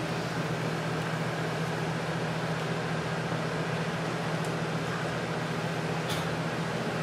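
Box fan running with a steady hum. A short click about six seconds in.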